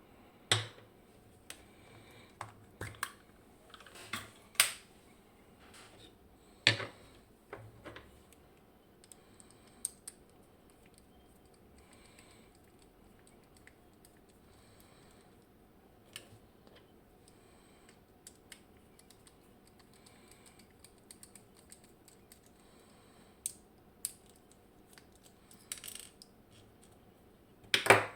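Scattered metallic clicks and knocks of picking tools and lock parts being handled while a picked Kaba 6 pin-tumbler lock is taken apart, with several sharp knocks in the first few seconds and a louder one near the end.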